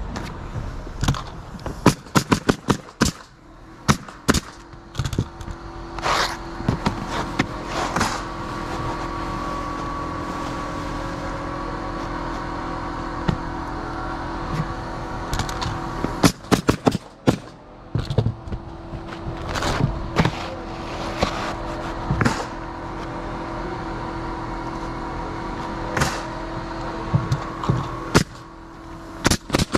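Pneumatic roofing nailer firing in several quick runs of shots as asphalt shingles are nailed down. A steady machine hum runs underneath for much of the time.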